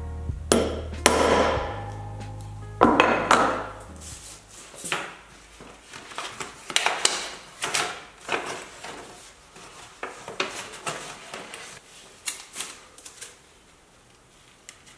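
Three sharp knocks in the first three seconds as a hand tool is worked down onto a sheet of paper on a wooden workbench. After that comes a long run of irregular paper crinkling and rustling as the sheet is handled and fitted for masking, thinning out near the end.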